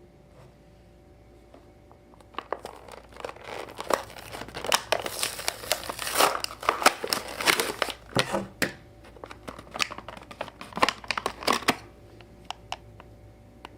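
Plastic and cardboard toy packaging being handled and torn open, with dense crinkling, crackling and tearing that starts a couple of seconds in and stops near the end, leaving a few scattered clicks.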